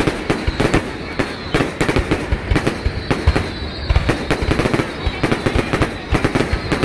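Fireworks display bursting continuously, with several sharp bangs and crackles a second overlapping one another.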